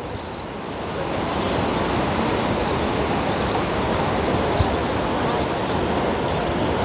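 Steady rush of the Rhine's flowing water below the falls, building over the first second or so.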